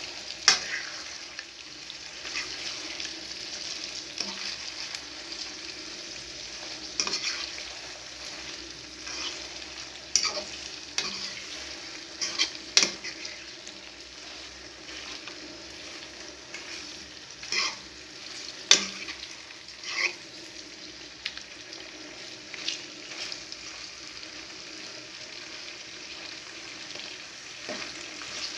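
Beef liver and onions frying in oil in a pan over low heat, a steady sizzle with occasional sharp clicks.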